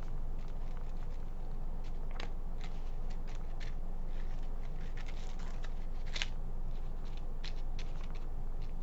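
Small paintbrush spreading acrylic gel medium over a paper photo print: short, irregular brush strokes, with a steady low hum behind them.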